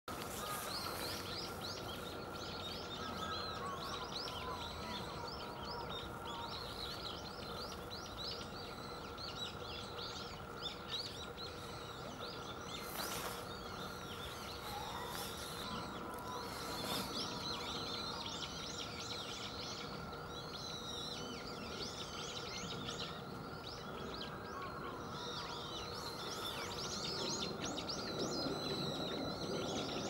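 Small birds chirping busily, many short high calls overlapping throughout, over steady outdoor background noise with a faint continuous hum.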